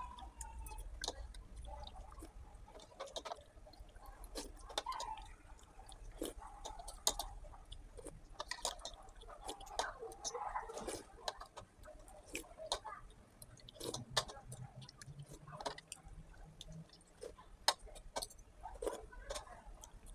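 Close-up eating sounds: chewing and slurping, with scattered sharp clicks of a metal fork and spoon against the bowl.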